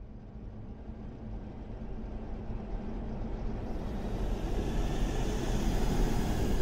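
Low rumbling noise that swells steadily louder throughout, a rising horror-film tension drone.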